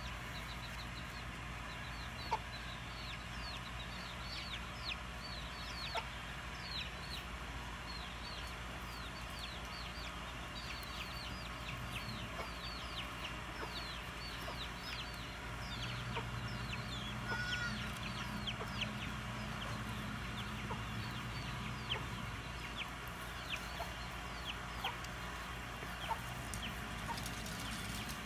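Birds chirping outdoors, many short high chirps falling in pitch, several a second, typical of backyard chicks or fowl, over a steady low hum. A few sharp knocks stand out, the loudest about two seconds in.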